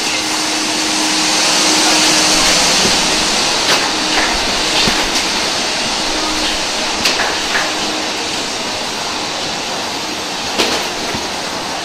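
Steady, loud rushing noise of aircraft ground machinery at the jet bridge, with a faint steady hum underneath. A few light clicks and knocks of footsteps and luggage come through it.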